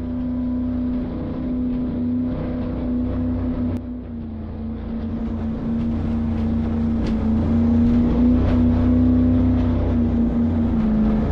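Steady motor hum at one main pitch that dips and rises slightly, over a low rumble and rushing air, growing louder about five seconds in.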